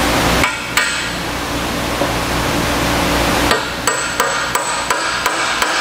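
Hammer blows on metal, ringing after each strike, as the end bracket of a 200 HP electric motor is knocked loose. A few spaced strikes come first, then a quicker run of about three strikes a second in the second half.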